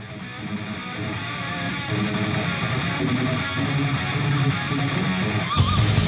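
Background music led by strummed electric guitar, fading in at the start. A sudden crash of noise comes in about five and a half seconds in.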